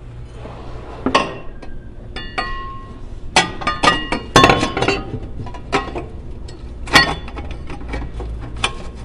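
Stainless steel exhaust mid pipe clinking and knocking against the header pipes as it is worked onto them. A run of sharp metallic clinks, some ringing briefly, loudest about four seconds in.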